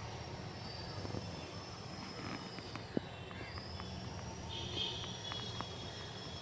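Steady outdoor ambience: a low continuous rumble with a thin high whine that sags and rises in pitch, and a single sharp click about three seconds in.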